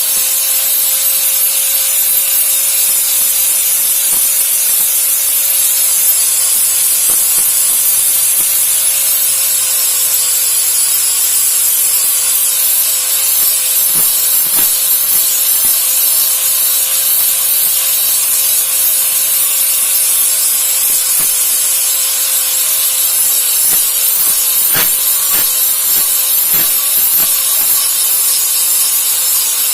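Steady abrasive grinding against a machete's steel blade: a continuous hiss over a steady motor whine, with a few faint ticks near the middle and toward the end.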